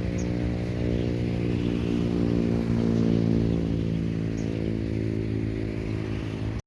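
A small boat engine, likely an outboard, runs at a steady pitch and cuts off suddenly right at the end.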